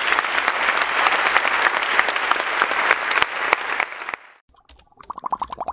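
Large audience applauding, a dense clatter of claps that cuts off suddenly about four seconds in. After a short gap, a rapid pulsing tone starts near the end.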